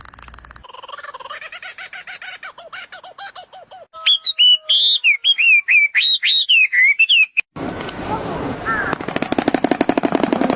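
A string of different animal calls cut one after another. First comes a rapidly pulsed, pitched call. About four seconds in, loud whistled notes follow that glide up and down like bird song. In the second half there is a fast, noisy rattling pulse.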